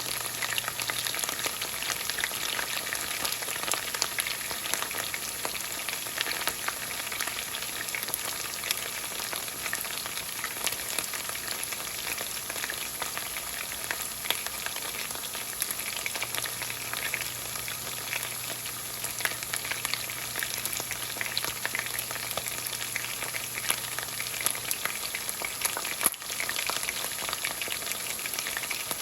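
Chicken thighs searing in peanut oil in a skillet: a steady sizzle dotted with constant small crackling pops, briefly dropping out once near the end.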